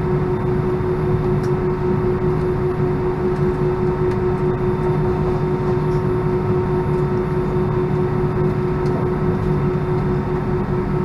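Steady cabin noise inside an Airbus A319 on the ground with its IAE V2500 engines at idle: a constant low rumble with a steady whine and hum, unchanging throughout.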